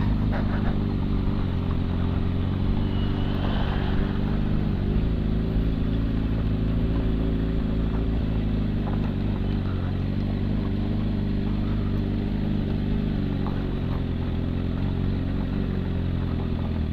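Suzuki GSX-R 750 (SRAD) sport bike's inline-four engine running at a steady, low engine speed as the bike rolls slowly over a loose gravel road, with a constant hiss of tyre and road noise beneath it.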